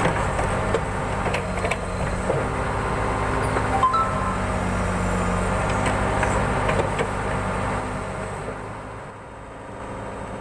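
Diesel engine of a backhoe loader running steadily, with a few light metallic clinks; the sound fades down near the end.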